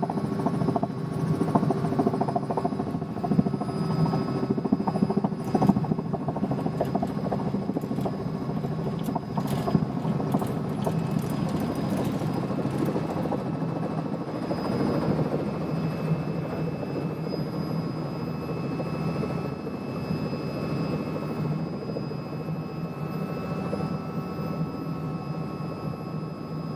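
Helicopter running, heard from inside the cabin: steady engine and rotor noise with a few faint high steady tones over it.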